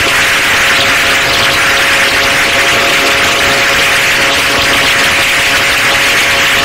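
Yamaha RX two-stroke single-cylinder motorcycle running steadily at cruising speed, its engine note held even under a loud, steady rushing noise of wind and road.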